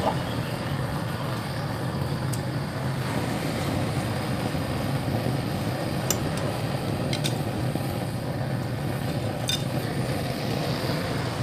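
A hose-fed gas torch burner running with a steady, low rushing noise as it heats thick paint and body filler on a steel motorcycle fuel tank. A few sharp clicks of steel scrapers against the tank cut through it.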